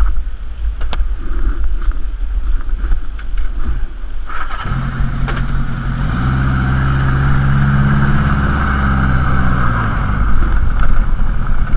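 Motorcycle engine with a sidecar rig: a low rumble and a few knocks for the first four seconds or so, then the engine note rises as the bike pulls away and holds steady while it rides, easing off slightly near the end.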